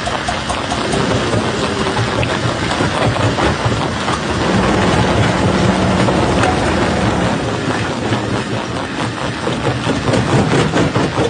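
Stone crusher machine running under load, a dense grinding and rattling din of rock being broken. A steadier hum comes through midway, and quick rattling knocks pick up near the end.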